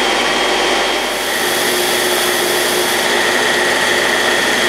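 A stationary power sander running steadily with a steady whine, while a small wood plug is held against it to square up its sides. The hiss grows brighter from about a second in to past the middle.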